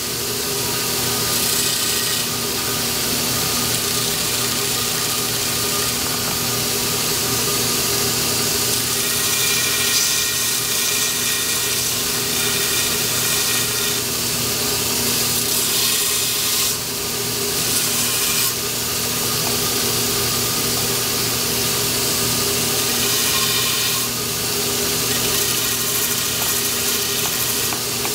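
Electric grinding wheel and shop dust collector running steadily, with the grinding wheel trimming the fiberglass on a longbow's take-down tenon. The motor hum and grinding hiss hold even throughout, shifting a little as the work is pressed to the wheel.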